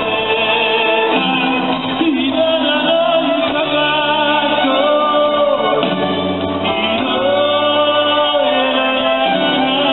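Live band music with a male singer singing long held notes, each bending at its end, over the band's accompaniment.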